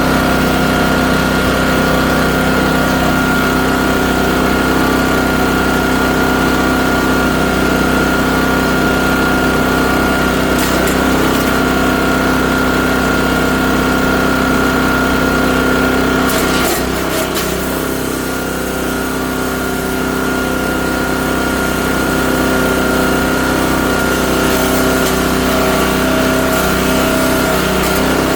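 The 7-horsepower engine of a Great Circle USA 3-inch chipper shredder running at a steady, loud speed. A few brief cracks come through about ten seconds in, and again about seventeen seconds in, where the engine briefly loads down a little.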